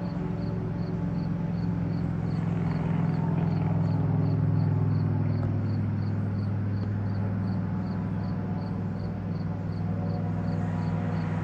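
A low, steady engine hum that swells a little about four seconds in and then eases. A faint insect chirp repeats evenly, two or three times a second, behind it.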